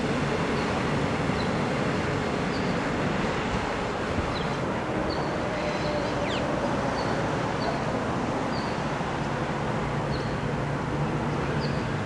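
Queensland Rail electric multiple-unit train running steadily as it pulls away from the station. Repeated short, high bird chirps sound over it.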